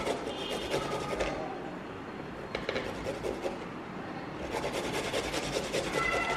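Garlic cloves rubbed quickly back and forth across a small handheld metal grater, in three runs of rapid rasping strokes with short pauses between.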